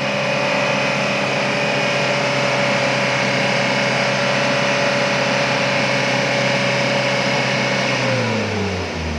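Hyundai Grace van engine held at high revs, then let fall back toward idle about eight seconds in. It is being revved hard to burn through the oil additive and clear its heavy exhaust smoke.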